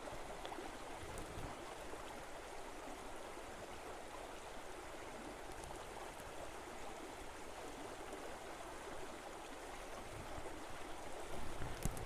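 Faint, steady rush of running water, like a stream flowing, growing slightly louder near the end.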